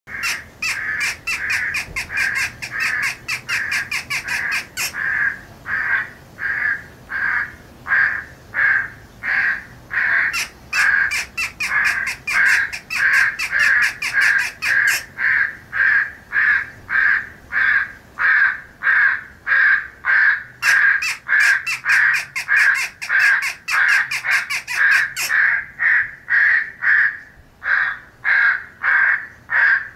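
Crows cawing over and over in a continuous run, about two caws a second. This is a recorded corvid feeding call, the kind played through an electronic game caller to draw in crows. In three stretches of about five seconds the caws sound harsher and brighter.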